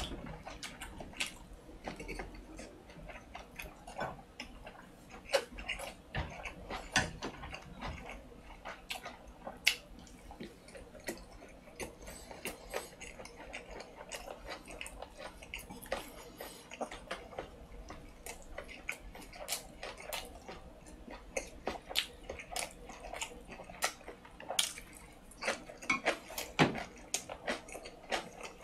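Close-miked mouth sounds of a man chewing a mouthful of gimbap: a steady run of small, irregular wet clicks and smacks.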